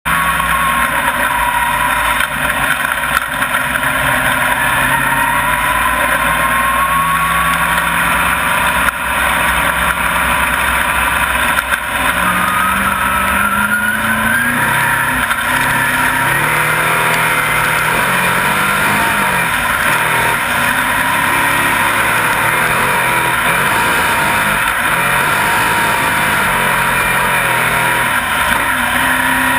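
Dirt modified race car's V8 engine heard through an in-car camera, running steadily loud with its pitch rising and falling as the throttle is worked.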